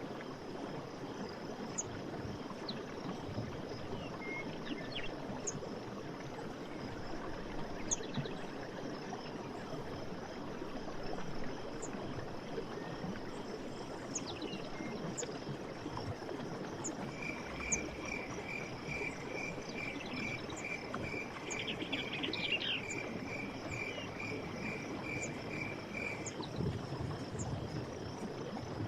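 Forest stream running as a steady rush of water, under a steady high insect trill and scattered short bird chirps. A bit past halfway, one note repeats evenly about twice a second for some nine seconds, then stops.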